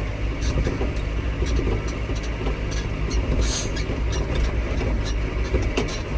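Farm tractor's diesel engine running steadily under way, a low drone with scattered clicks and rattles.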